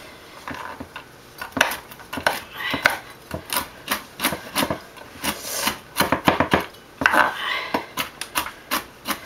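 A chef's knife chopping pecans on a wooden cutting board: an irregular run of sharp knocks, several a second, starting about a second and a half in.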